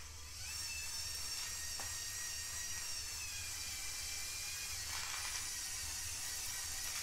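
Electric motors of a LEGO Technic Liebherr R 9800 excavator model running, a steady whir with a faint high whine that shifts slightly in pitch.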